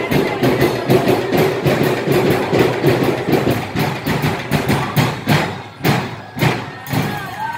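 Festival street-dance percussion: drums beating a fast, steady rhythm that breaks into a few louder, spaced strikes near the end.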